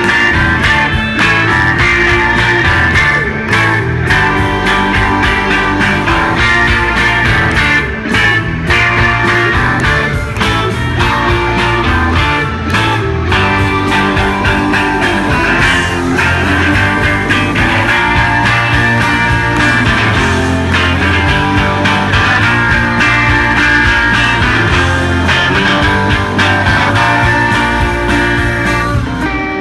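Live rock band playing loud, with electric guitars, bass and drums.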